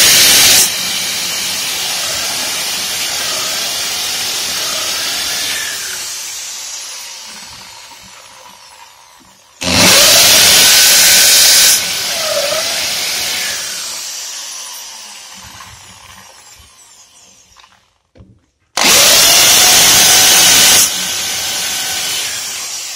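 Handheld electric drill boring holes into a wall for wall plugs: three loud bursts of drilling, each about two seconds long and about ten seconds apart. After each burst the motor runs on and winds down with a slowly falling whine.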